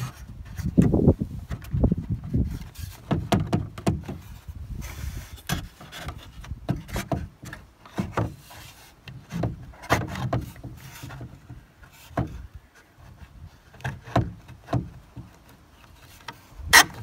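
Wooden slatted chair parts being handled while bolts are fitted through the back: irregular knocks, taps and wood rubbing on wood, with one sharp click near the end.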